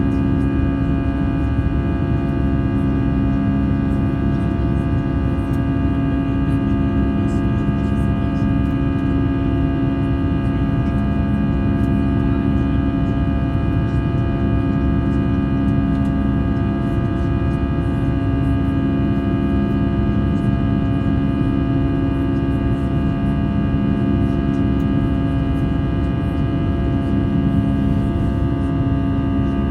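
Steady cabin drone of an Airbus A320 in flight: jet engines and airflow, a low rumble with several steady whining tones over it.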